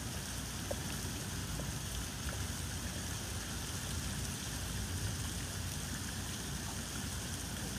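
Heavy rain pouring down steadily onto a flooded street, an even hiss with no breaks.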